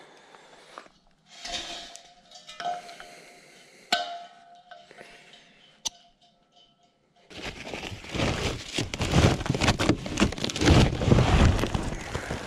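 Small clicks and knocks of a propane cylinder's valve and hose fitting being handled, then from about seven seconds in a loud, dense rustling and rubbing as a plastic bag and gear are handled.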